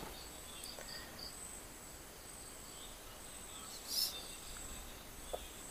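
Insects chirping faintly and steadily in the background in high, thin tones. About four seconds in there is one brief soft hiss.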